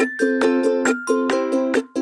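Background music: a bright, rhythmic plucked-string tune in a ukulele style, several notes a second.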